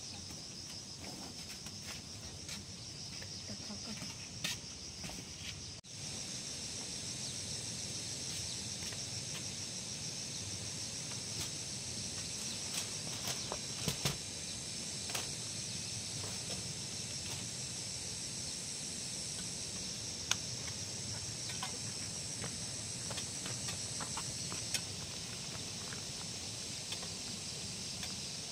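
A steady, high, pulsing chorus of insects chirring in the background, with scattered short clicks and knocks from movement nearby.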